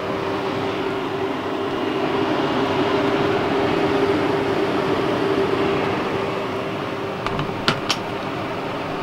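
MaxxAir MaxxFan Deluxe roof vent fan running on its newly wired 12 V supply: a steady hum and rush of air, swelling a little midway. A few sharp clicks near the end, two of them loud.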